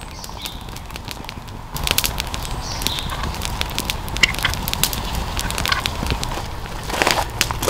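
Wood campfire crackling, with sharp pops scattered throughout. A low rumble joins about two seconds in.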